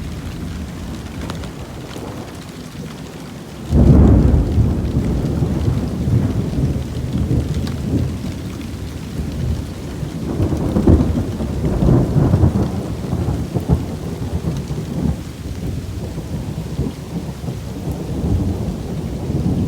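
Steady rain falling, then a loud thunderclap about four seconds in that rolls on as low rumbling thunder, swelling and fading several times.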